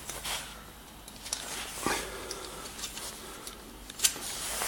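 A small groove-cleaning tool scraping packed sawdust out of the groove of a chainsaw bar: scattered short scratchy scrapes and light clicks, with sharper ones about two seconds in and near the end.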